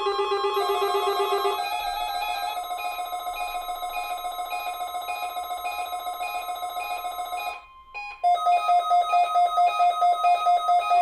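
Electronic emergency-alert tones: rapidly pulsing, trilling beeps in several pitches, changing pattern about a second and a half in. After a short break near the end comes a louder tone pulsing a little over twice a second.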